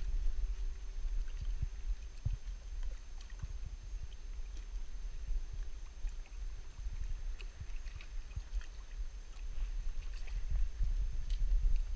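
Low, unsteady rumble of wind buffeting a camera microphone, with a few faint light ticks scattered through it.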